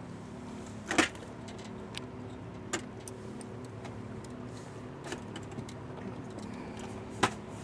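A boat's outboard motor idling with a steady low hum, broken by a few sharp clicks and knocks, the loudest about a second in and near the end.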